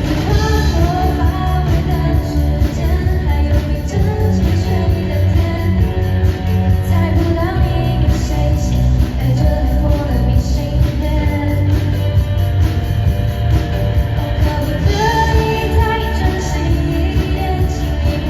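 A band playing a pop-rock song with a lead singer over bass, drums and guitar.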